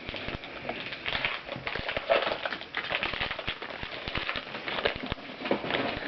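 Trading cards being handled and flipped through, with many small clicks and rustles of card stock sliding and snapping against each other.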